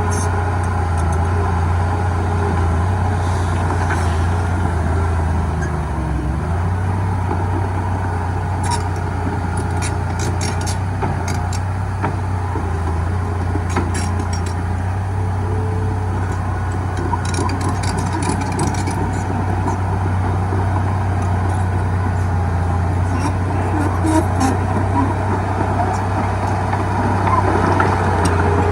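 Heavy diesel engine of earthmoving equipment running steadily at a low drone, with scattered short metallic clicks and knocks mostly in the middle and near the end.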